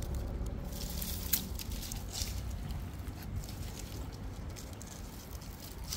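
A collapsible net fish trap being handled and lowered back into the water: a few brief rustles and knocks over a low steady rumble, the sharpest knock about a second and a half in.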